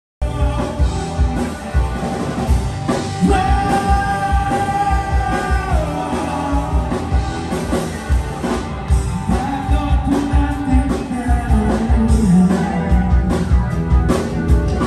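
Live band playing rock music with a singer: drums, electric guitar and vocals with long held notes. The music starts abruptly just after the start.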